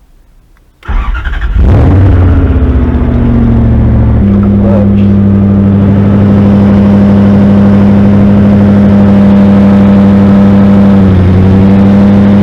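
Toyota MK3 Supra's engine starting up about a second in and then running at a steady idle, its pitch stepping up once a few seconds later and dipping briefly near the end.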